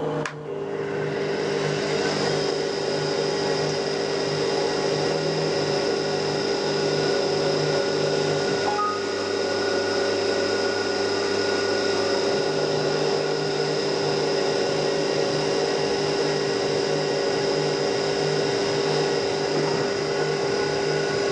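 CNC mini mill running under program: the spindle motor runs steadily with a high whine, over a lower pulsing hum that stops about nine seconds in and returns about four seconds later.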